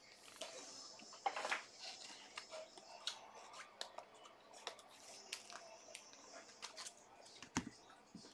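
Faint handling of trading cards and their packaging: scattered soft clicks, slides and rustles, with one sharper click near the end.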